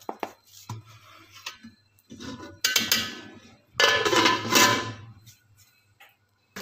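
A few light metal clinks, then a metal lid set down onto an aluminium cooking pot with two clattering, ringing clanks about a second apart, from about two and a half seconds in.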